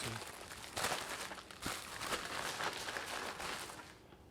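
Packaging rustling and crinkling in irregular bursts as a new set of engine head bolts is unpacked, dying down shortly before the end.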